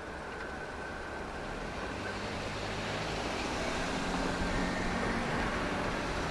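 A vehicle approaching, its steady engine hum growing louder. A thin high ringing tone fades out in the first couple of seconds.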